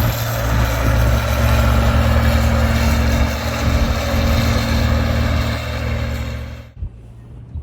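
An engine running steadily, a low hum under a loud hiss, which cuts off abruptly near the end.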